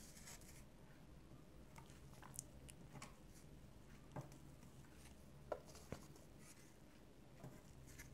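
Near silence with a few faint, scattered taps: the edge of a cardboard strip pressed onto paper to print gouache paint rays, over a low steady room hum.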